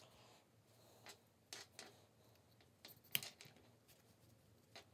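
Near silence with a few faint scattered clicks and taps from a small brushless outrunner motor being handled and put back together by hand, the loudest a little past three seconds in.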